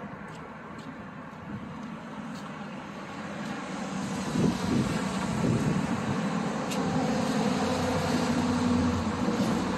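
Passing motor traffic: a vehicle's engine noise grows louder about four seconds in and stays up, with a low steady hum toward the end.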